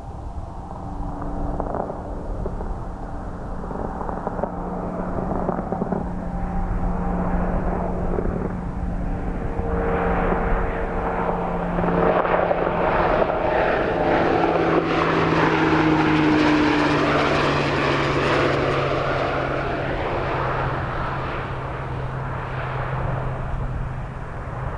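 Military aircraft flying past the airfield: its engine noise swells to its loudest about two thirds of the way through, then fades, and its steady hum drops in pitch as it goes by.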